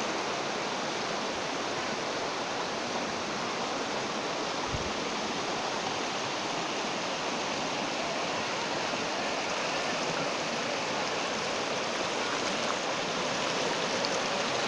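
Floodwater rushing across a submerged road and spilling over its edge: a steady rush of water that grows slightly louder near the end.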